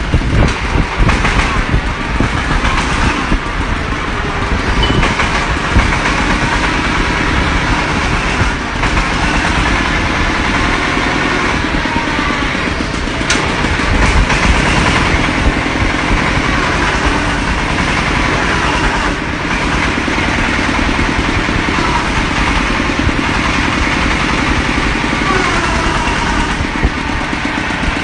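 The engine of an industrial drilling machine running steadily and loudly.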